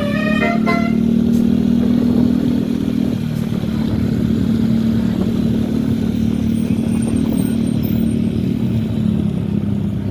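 The last notes of a tour bus's multi-tone telolet horn melody stop about a second in. They give way to the loud, steady drone of a large bus engine running.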